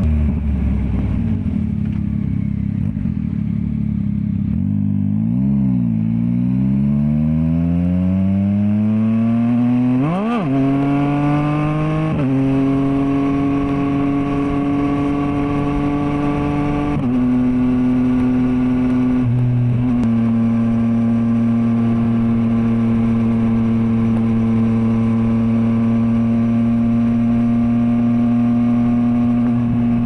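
Yamaha MT-09's three-cylinder engine through a full carbon aftermarket exhaust, heard from the rider's seat. It drops in pitch at first, then rises as the bike accelerates around ten seconds in, with a few sudden pitch steps at gear changes. It settles into a steady cruise for the last ten seconds.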